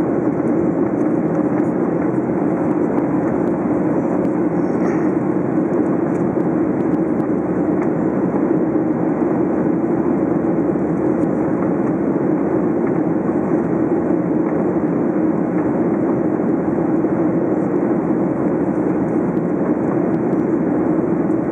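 Cabin noise of a Boeing 737-800 in flight, heard from a seat over the wing: the drone of its CFM56-7B turbofan engines mixed with the rush of air past the fuselage, a steady low rushing hum.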